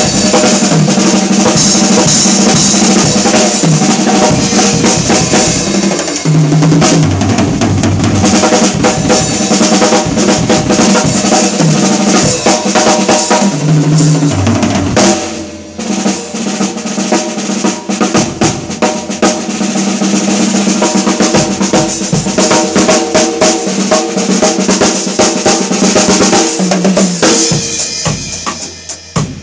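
O.N.Custom Drums 14x7 Hybrid Series stave snare drum (maple, Burma blackwood and rosewood) played in fast rolls, rimshots and grooves within a drum kit with bass drum. Twice, about six seconds in and again near fourteen seconds, lower tom hits step down in pitch. Playing breaks off briefly at about fifteen seconds and thins to sparser, quieter strokes near the end.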